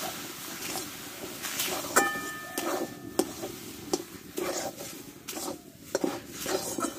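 Metal spatula scraping and knocking against a metal kadai while stirring and pressing a thick semolina-and-flour dough over a fire. A sharp clang about two seconds in leaves the pan ringing for a moment.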